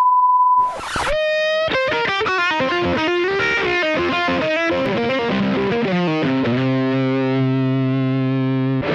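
A steady high beep, cut off by a short burst of static, then a distorted electric-guitar intro riff that ends on a long held chord.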